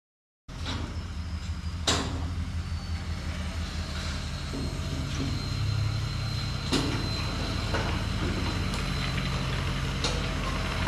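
Ford Super Duty pickup's engine running with a steady low drone while it maneuvers a loaded car trailer, with two sharp clicks about two and seven seconds in.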